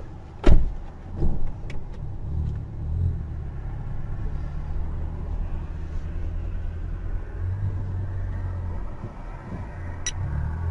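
Car driving on a highway, heard from inside the cabin: a steady low rumble of engine and tyres. A loud sharp thump comes about half a second in, with a weaker one just after.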